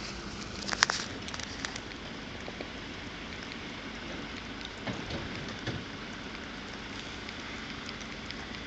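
Steady background hiss with a sharp cluster of clicks about a second in and a few faint ticks after; no alarm siren or horn sounds.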